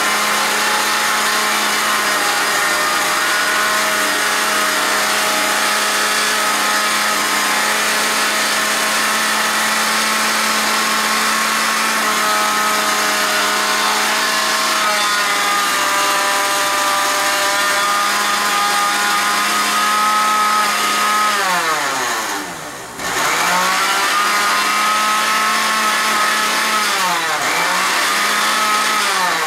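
Electric countertop blender motor running at a steady high speed, churning a jar of dish soap and water to clean it. About three-quarters of the way through, the motor winds down almost to a stop and spins back up. It dips briefly once more a few seconds later and winds down at the end.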